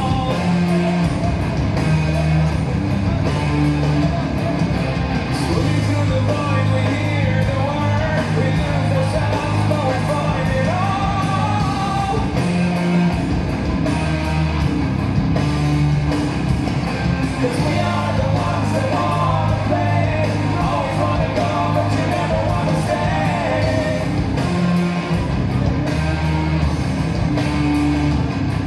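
Loud rock song with a singer over guitar and a steady bass line.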